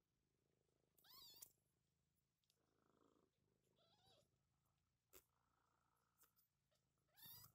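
Newborn kittens mewing: two loud, high-pitched, wavering mews about a second in and near the end, and a fainter one about four seconds in. A low steady purr runs underneath.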